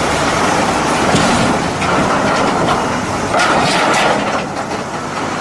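Running water splashing steadily as a toy truck is washed.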